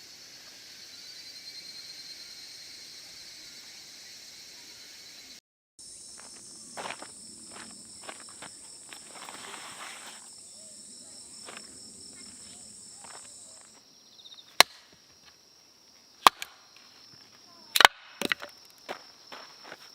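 Insects chirping steadily, cut off briefly about five seconds in and then resuming at a different pitch. Scattered light clicks and knocks follow, and three loud, sharp knocks come near the end.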